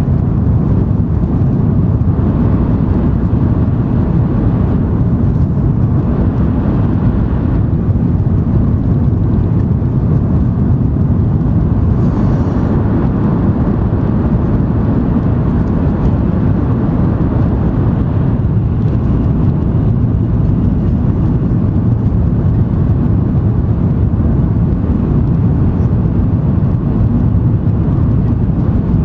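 Steady low rumble inside the passenger car of an N700 series Shinkansen running at speed: the wheel, track and air noise of the train.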